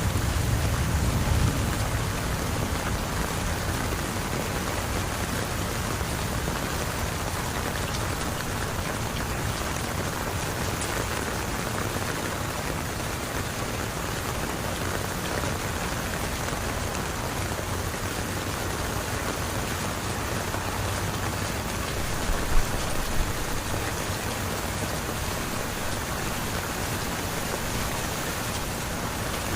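Heavy rain falling steadily, an even hiss of water. A low rumble in the first second or so, and two sharp knocks about three-quarters of the way through, the loudest sounds here.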